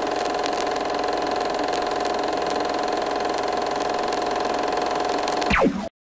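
Vintage film projector sound effect: a steady mechanical whirr with a held tone and scattered clicks. About five and a half seconds in it ends with a quick falling sweep and cuts off abruptly.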